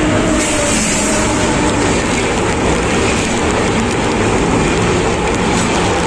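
An electric locomotive and the passenger coaches behind it passing at close range on a railway bridge: a loud, steady rumble and rush of wheels on rails.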